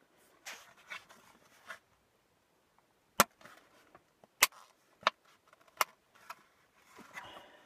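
Sharp plastic clicks and knocks as a switch button is pushed into a plastic console panel. There is soft handling rustle at first, then four sharp clicks spread over about three seconds.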